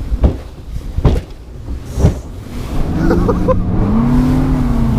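Skeeter bass boat's outboard motor running at speed over a low rumble of water and wind, with the hull slamming onto waves three times about a second apart. About three seconds in, the engine's pitch climbs as the throttle comes up, then eases slightly near the end.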